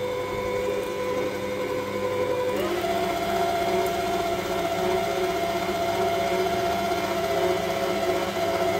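Electric stand mixer motor running with a steady whine as its dough hook stirs the yeast liquid in a steel bowl. About two and a half seconds in it steps up to a higher speed, and the whine jumps up in pitch and holds there.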